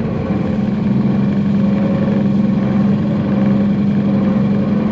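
Unimog diesel engine running steadily at an even pitch, heard from inside the cab while the truck is driven slowly over rough, muddy off-road ground.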